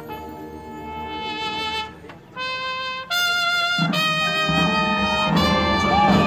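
Marching band brass playing long held notes. The sound breaks off briefly about two seconds in, then the brass comes back louder about three seconds in, with low brass joining a moment later.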